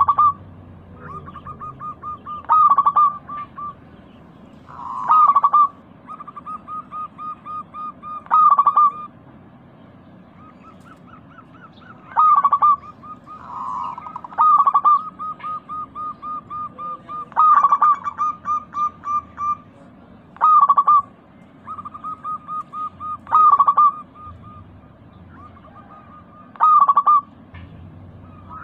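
Local perkutut (zebra dove) singing its cooing song: a quick run of soft notes, about five a second, ending in a louder coo. The phrase repeats roughly every three seconds.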